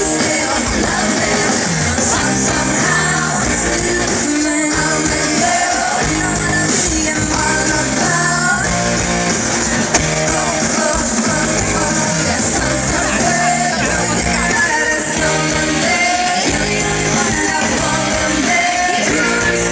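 Live rock band playing with a singer, loud and continuous, heard from the audience.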